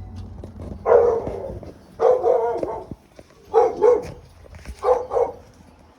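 A dog barking repeatedly: about six barks, a few coming in quick pairs.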